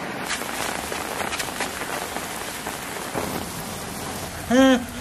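Steady rain falling. A brief vocal cry comes near the end.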